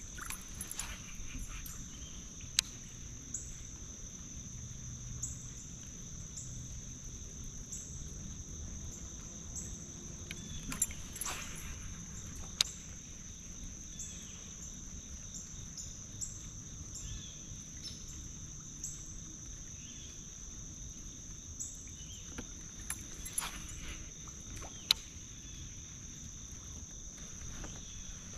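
Steady high-pitched insect chorus that swells a little slower than once a second, over a low rumble, with a few sharp clicks scattered through.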